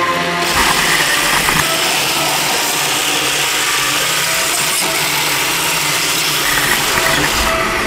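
iRobot Roomba robot vacuums running, their vacuum motors and brushes making a steady, loud whirring hiss. The high hiss thins out near the end.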